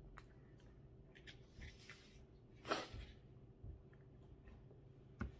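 Quiet room with a steady low electrical hum and scattered small mouth clicks, and one short, sharp breath a little past the middle.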